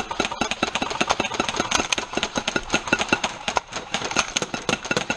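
Airsoft electric guns firing in fast, overlapping automatic bursts: a dense, continuous rattle of sharp shots from several guns at once.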